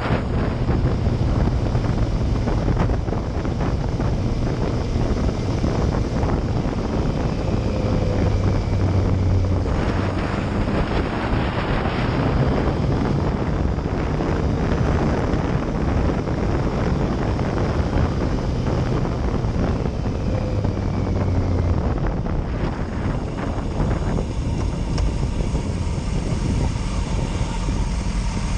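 Yamaha Fazer motorcycle riding along a wet road: the engine runs steadily under the rush of wind on the microphone and the hiss of tyres through water. The rush eases somewhat near the end as the bike slows.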